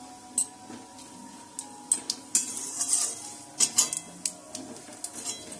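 Metal spatula scraping and clinking against a metal karai (wok) while stirring bay leaf and panch phoron in hot oil: scattered clinks, with a busier stretch of scraping a little past halfway.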